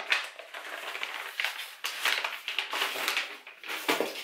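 Paper envelope being opened, with repeated rustling and crinkling as a glossy printed catalogue is slid out of it.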